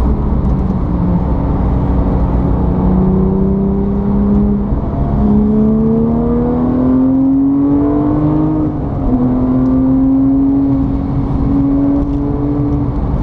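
Car engine under way, its pitch climbing steadily, then dropping once about nine seconds in and holding fairly steady after that.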